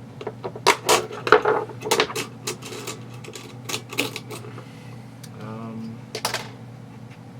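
Clicking and clattering of a screwdriver and small gearbox parts being handled during disassembly of an airsoft gearbox: a quick run of sharp clicks and knocks, a short low tone about five and a half seconds in, then a few more clicks. A steady electrical hum runs underneath.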